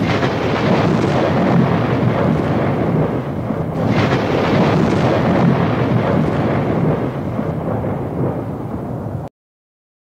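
Booming cinematic sound effect for an animated logo intro: a deep rumbling impact at the start and a second sharp hit about four seconds in, each fading away, then a sudden cut to silence near the end.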